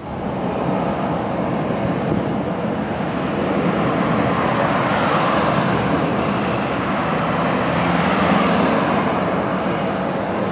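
Loud, steady rushing roar of jet aircraft engine noise at an airfield, swelling about halfway through and again near the end.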